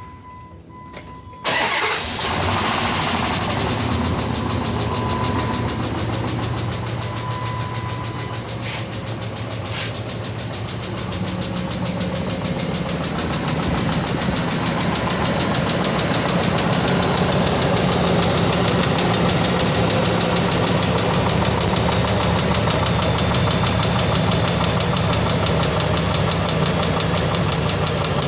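2004 Dodge Durango's 5.7 Hemi V8 starts about a second and a half in, then runs at idle with a loud, rapid tick. The dealer says the tick is a lifter but would have to tear the engine down to be sure.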